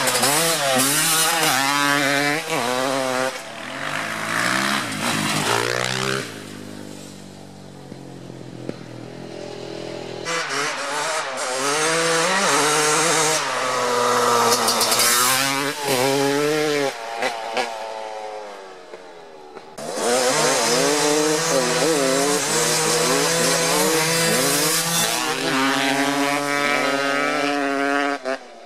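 Suzuki RM250 two-stroke dirt bike engine revving hard as it accelerates, its pitch climbing and dropping back with each gear change. The bike makes three loud runs with quieter stretches between them.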